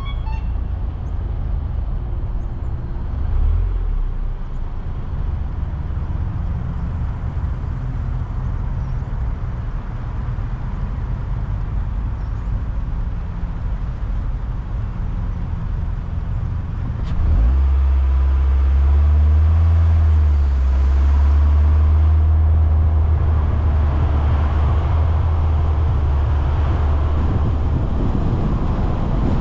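A car driving along a city street: steady low engine and tyre rumble, which turns louder and deeper about two-thirds of the way in.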